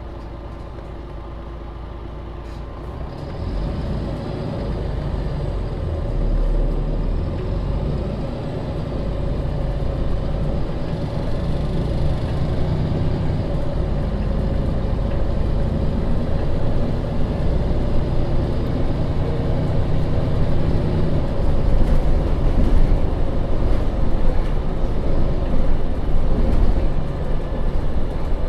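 MAN Lion's City NL 283 city bus diesel engine running low and steady, then from about three seconds in it picks up and grows steadily louder as the bus pulls away and accelerates.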